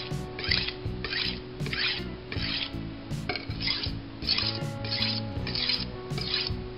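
Steel kitchen knife blade scraped across a white aluminium oxide (corundum) sharpening stone in quick strokes, a rasping scrape about twice a second with a brief break near the middle.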